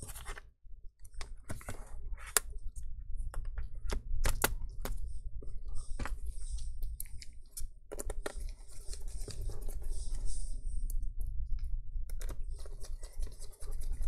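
Scattered clicks, taps and scratchy rubbing as gloved hands set a laptop battery pack back into the open chassis and handle its cable.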